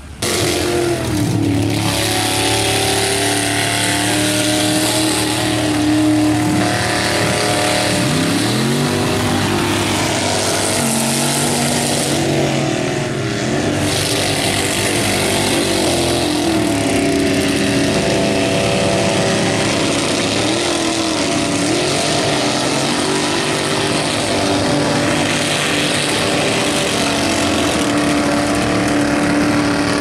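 Lifted mud-bogging truck's engine running hard and revving as it churns through a mud pit. Its pitch sags and climbs back several times as the revs rise and fall.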